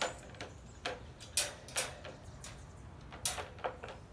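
Wire dog crate's metal door and latch clinking and rattling as they are handled, a handful of sharp clicks spread over a few seconds.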